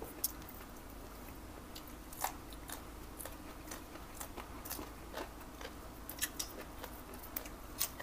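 Crisp crunching of raw vegetables, a yardlong bean among them, being bitten and chewed close to the microphone: scattered sharp crunches, one or two a second.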